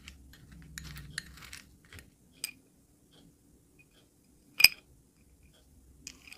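Lumps of Vatutino chalk shifting in a glass bowl: dry crackles and small clicks, with one loud sharp click a little past the halfway point.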